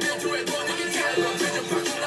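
K-pop dance track playing, with a steady beat.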